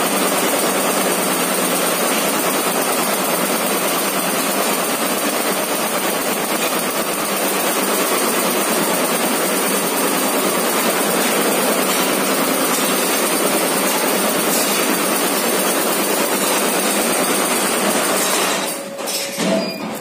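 Multi-head computerized embroidery machine running, a loud, fast, steady mechanical clatter of its many needle heads stitching; the noise dips and wavers briefly near the end.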